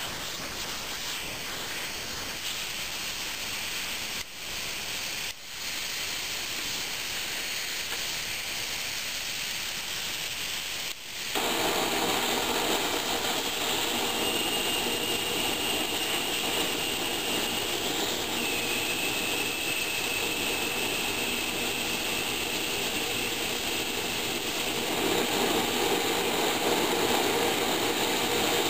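Hago siphon oil burner: compressed air hissing through the nozzle, briefly interrupted twice, then about 11 s in the oil spray lights and the burner settles into a steady roar of burning oil mist with a faint whistle, growing a little louder near the end.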